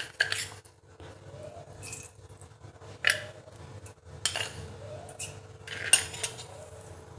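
Steel spoon clinking and scraping against a stainless steel bowl, a handful of separate clinks spread over several seconds.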